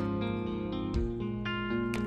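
Background music led by a strummed guitar, its chords changing about every half second.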